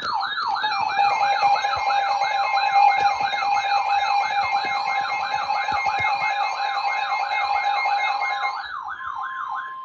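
Electronic emergency-alert siren going off for a new tornado warning: a loud warbling tone sweeping up and down about three times a second, with steady alert tones held beneath it. Near the end the warble stops and a single steady alert tone carries on.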